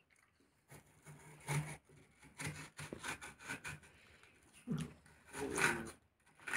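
Kitchen knife cutting through watermelon on a plate: a run of short rasping slicing strokes, loudest about five and a half seconds in.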